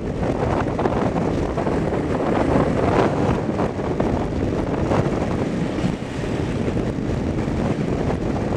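Wind buffeting the microphone outdoors: a loud, steady rumbling rush with no clear pitch.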